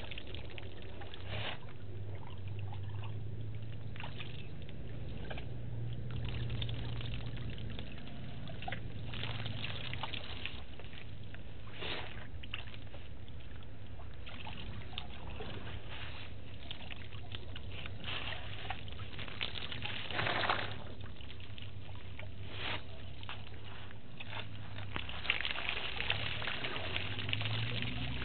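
African elephants drinking at a waterhole: water trickling and splashing as their trunks draw it up and pour it into their mouths, with occasional louder splashes.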